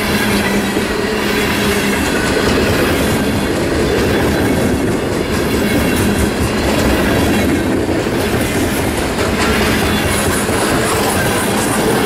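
Freight cars of a long mixed freight train rolling past at speed, steel wheels rumbling and clacking over the rail joints in a loud, steady run.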